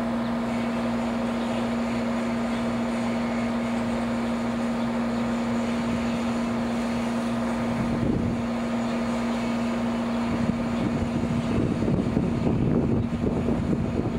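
A steady mechanical hum holding one pitch, with gusts of wind on the microphone about eight seconds in and again over the last few seconds.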